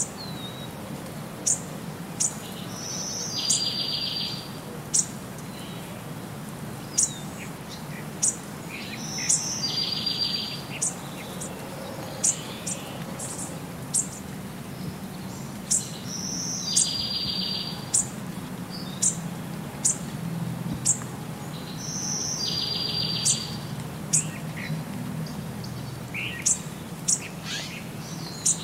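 Birdsong ambience: sharp high chirps about once a second, with the same trilled call coming back every six to seven seconds.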